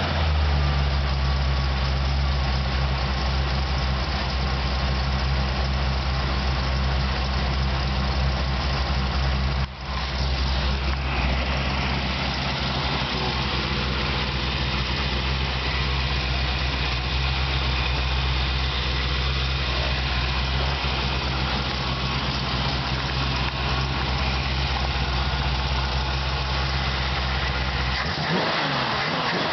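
1955 Chevrolet's carbureted V8 engine running, mostly at a steady idle.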